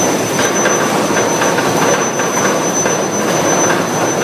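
Steady industrial noise from a square steel induction heating furnace line running: a constant broad mechanical noise with a thin, steady high-pitched whine over it and faint scattered ticks.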